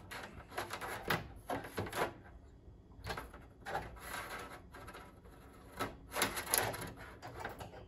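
Handling noise from installing a pinball topper: its wire bundle being fed down through a hole in the top of the backbox and the sheet-metal topper rubbing and knocking against the cabinet. It comes as a series of short scrapes and light knocks, with a quieter stretch in the middle.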